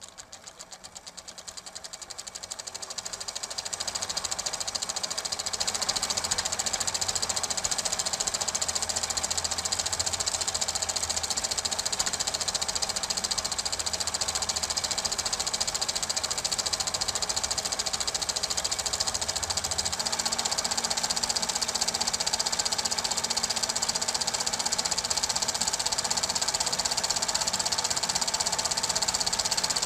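Super 8 film projector running, its mechanism making a fast, even clatter that fades up over the first few seconds and then holds steady.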